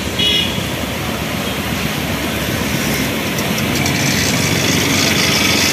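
Traffic on a flooded road: auto-rickshaws, a car and a scooter run their engines as they drive through deep standing water, with a steady hiss of splashing water. The hiss grows louder from about three seconds in.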